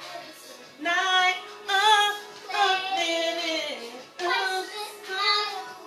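Music playing: a song with a high singing voice, sung phrases of held and bending notes starting about a second in.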